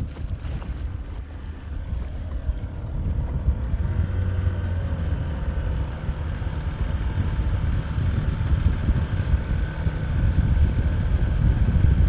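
Outboard motor running steadily, pushing a small boat across open water, with wind rumbling on the microphone.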